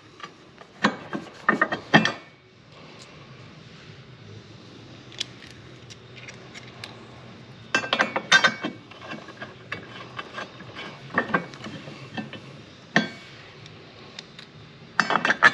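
Irregular metallic clicks and clinks of intake-grate bolts and a hand tool as the bolts are threaded in by hand under a jet ski hull, in a few short clusters, with a steady low hum between them.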